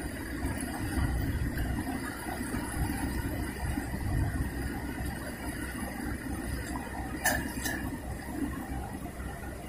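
Steady rush of a fast, shallow river running over rocks in rapids. Two short clicks come about seven seconds in.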